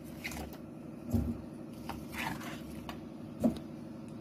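Chunks of cut cucumber put by hand into a stainless steel mixer-grinder jar: a few soft knocks and rustles, the sharpest about three and a half seconds in.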